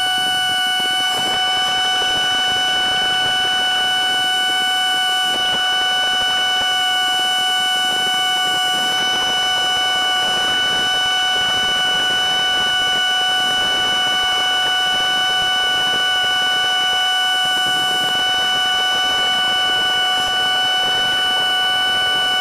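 Small boat's outboard motor running flat out at a steady speed: an unchanging, high-pitched whine.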